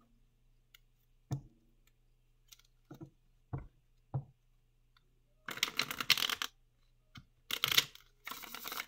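A deck of tarot cards being handled and shuffled. A few light clicks and taps come first, then three riffle shuffles in the second half, each a quick rattle of under a second.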